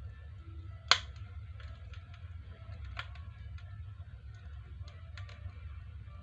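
Wood fire burning in a Bakhta stove-fireplace: sharp crackling pops over a low steady rumble, the loudest pop about a second in and another near three seconds.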